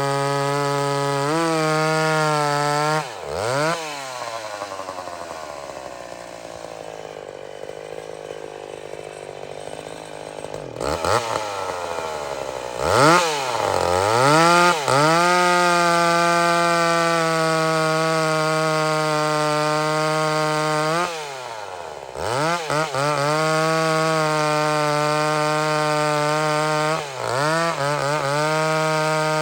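A vintage two-stroke chainsaw, about fifty years old, running hard at high revs, likely bucking a big tree. Its pitch falls off to a slower, quieter idle a few seconds in and climbs back to full revs after several seconds. The revs drop again briefly a little past two-thirds of the way through before the saw runs hard once more.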